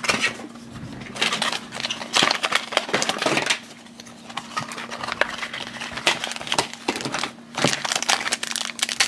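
Hard clear plastic toy packaging clicking and rattling as it is handled and opened, then a foil blind bag crinkling as it is torn open near the end.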